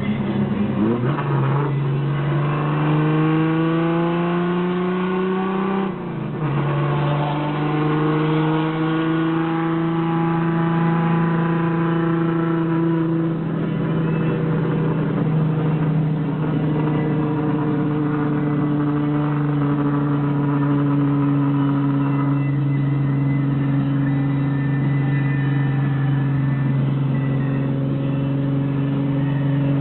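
IKA Torino's straight-six engine, hood off, pulling up through the gears. The pitch rises, drops at a gear change about six seconds in, rises again, and drops at another change around thirteen seconds. It then settles into a steady cruise.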